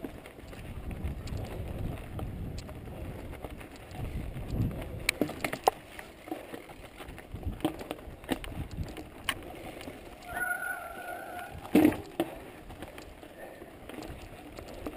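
Mountain bike ridden over a rough dirt trail: a low rumble of tyres on the ground with scattered clicks and rattles from the bike over stones and brush. About ten seconds in a short squeak lasts about a second, followed by a sharp knock.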